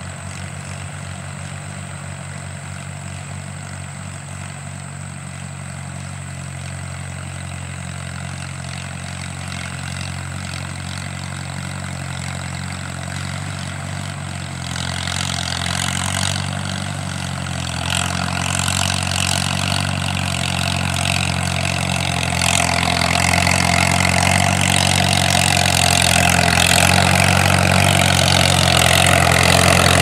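1958 Farmall 350 tractor's four-cylinder gas engine running steadily, growing louder as the tractor approaches. From about halfway a clattering rattle joins in, from the towed John Deere 348 baler and kicker wagon.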